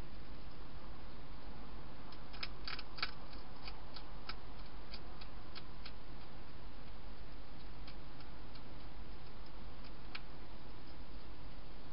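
Wild hedgehog crunching dry food: a run of sharp, irregular clicks for a few seconds, then a few more near the end, over a steady hiss and low hum.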